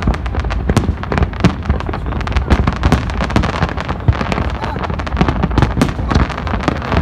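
Fireworks display: a continuous barrage of shell bursts and crackling, many sharp bangs a second with no break.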